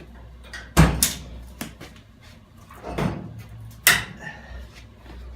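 Several sharp knocks and clunks from handling tools or body panels, the loudest about a second in and another just under four seconds in.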